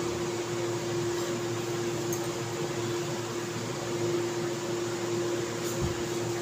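Steady machine hum holding one low tone over an even hiss, like a running fan or appliance, with nothing else happening.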